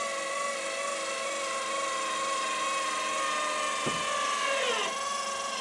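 Electric motor of a power flip windshield on a side-by-side whining steadily as it drives the windshield down to closed. The pitch dips briefly about four and a half seconds in.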